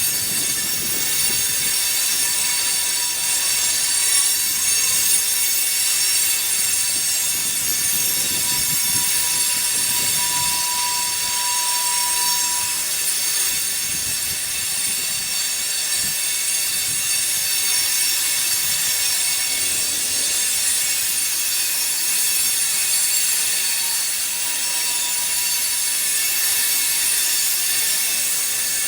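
Canadian National freight train rolling past, its wheels squealing on the rails: a loud, steady, high-pitched screech that lasts throughout.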